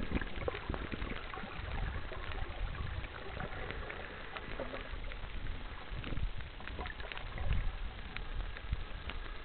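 Underwater ambience picked up by a camera held below the surface: a steady wash of water movement with irregular low thumps and scattered clicks and crackles.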